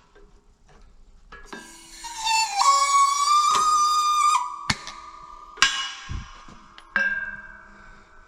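Metal parts of a PTO driveline U-joint being worked together: a held, slightly wavering ringing tone for about three seconds, then a few sharp metal clanks, each leaving a ringing tail, as the needle-bearing cap is pushed into the yoke.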